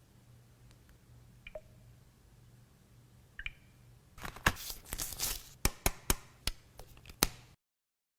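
Smartphone box packaging being torn open by hand: two small squeaks, then about three seconds of loud crackling and tearing, cutting off abruptly.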